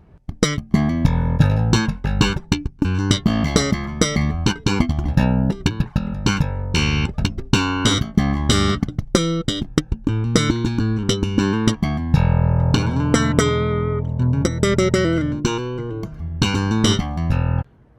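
Sandberg Masterpiece ash-body five-string electric bass played slap-style with the preamp switched to passive, recorded direct through an audio interface. A run of thumbed and popped notes with sharp percussive attacks, ending abruptly near the end.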